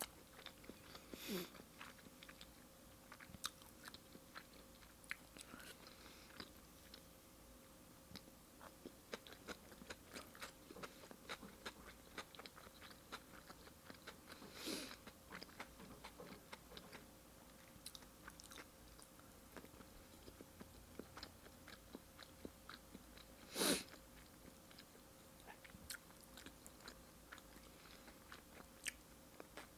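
Faint close-up chewing of sashimi: many soft, wet mouth clicks, with a few louder sounds, the loudest about two-thirds of the way through.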